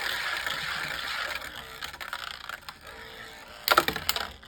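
Miniature Beyblade Micros tops spinning and scraping against each other in a small plastic stadium: a whirring hiss that fades about a second and a half in. A few sharp plastic knocks and clatters come near the end.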